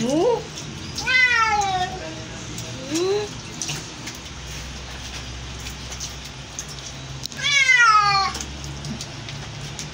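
A wet Siamese-type cat meowing while being handled in the sink: two long, loud meows that fall in pitch, about a second in and near the end, with short rising calls at the start and around three seconds in.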